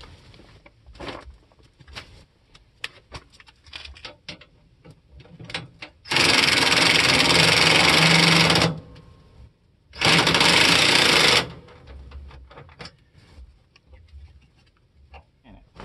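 Handheld cordless power drill running in two bursts, about two and a half seconds and then about a second and a half, with small clicks and handling knocks around them.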